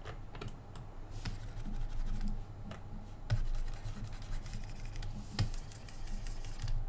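Scattered light clicks and scratchy rubbing from handling computer input devices during digital sculpting, over a steady low hum.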